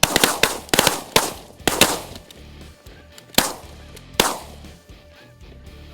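Volley of shotgun shots from several guns firing together: a rapid string of about seven shots in the first two seconds, then two more shots about a second apart, each dying away in a short echo.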